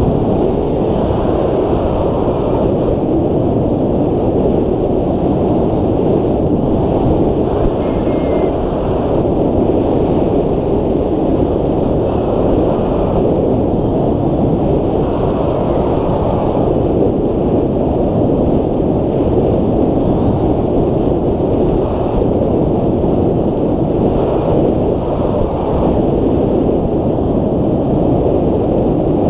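Wind noise from the airflow of a hang glider in flight, buffeting the microphone of a camera mounted on the wing. It is a loud, steady rumble.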